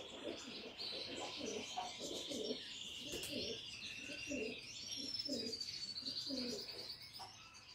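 Domestic pigeons cooing, a low call repeated every half second to a second, with a thin high chirping running above it. The cooing stops shortly before the end.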